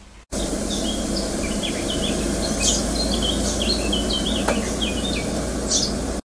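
Small songbirds chirping in many quick, short notes over a loud, steady background rush. The sound starts abruptly just after the beginning and cuts off suddenly near the end.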